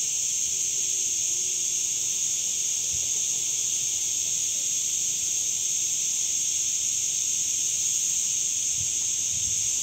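Dense chorus of cicadas in the pine forest: a steady, high-pitched buzz that holds at an even level throughout.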